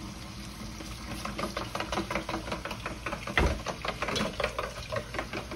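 Chicken bouillon being stirred quickly into water in a container, a utensil clinking against the sides several times a second. One heavier knock about three and a half seconds in is the loudest sound.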